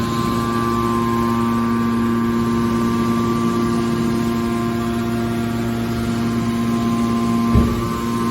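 Hydraulic power unit of a scrap metal baler running with a steady hum, with a single low thud about three-quarters of the way in.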